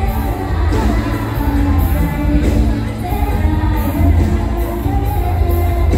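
Live mor lam band playing a toei dance song, loud through the PA: a singer's voice over a heavy bass and a steady beat.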